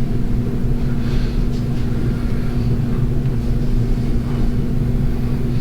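Steady, loud low machine hum with one constant tone, unchanging throughout.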